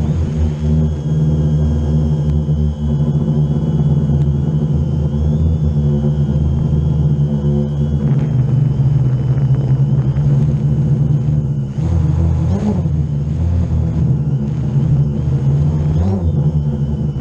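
Multirotor drone's motors and propellers buzzing steadily, heard from the drone's own onboard camera, as it lifts off the grass, climbs high and comes back down low. The pitch shifts with the throttle, with a brief swoop about twelve seconds in and another near the end.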